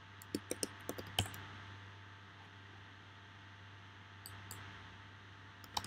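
Computer keyboard keystrokes and mouse clicks while entering values: a quick run of about six clicks in the first second or so, two faint ones a little after four seconds, and a few more near the end.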